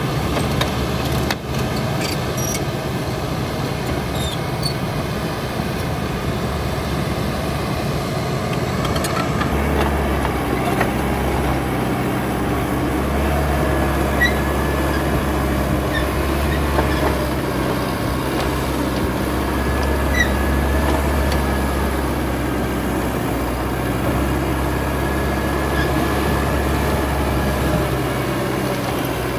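Caterpillar D6R XL bulldozer running, its diesel engine working steadily. The low rumble grows heavier about ten seconds in. A few short high squeaks come through now and then.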